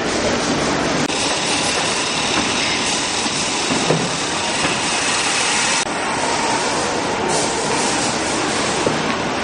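Steady, loud factory-floor noise of a plastic-bag workshop: machinery running with a continuous din. The sound changes abruptly about a second in and again near six seconds.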